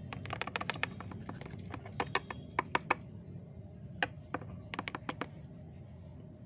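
Sharp clicks and taps in three quick clusters from an aquarium fish net being swished through and knocked against a plastic bucket of water, rinsing out harvested bloodworms.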